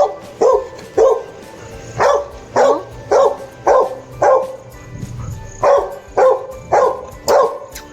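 A dog barking about a dozen times in quick succession, roughly two barks a second, with a short pause about two-thirds of the way through. The barks are excited barks at a kitten, from a dog its owner calls excessively frustrated.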